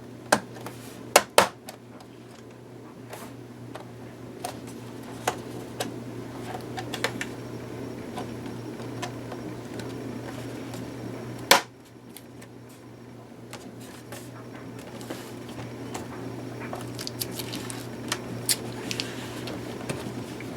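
Laptop's plastic bottom cover being fitted and pressed into place: scattered clicks and snaps, a few louder ones in the first second or so and a sharp knock about halfway through, over a steady low hum.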